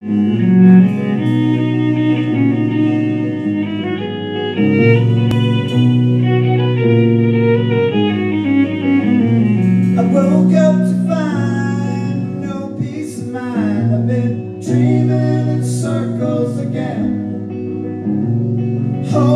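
Live rock band playing an instrumental passage: a violin bows long sliding notes over electric guitar, bass guitar and drums with a few cymbal crashes.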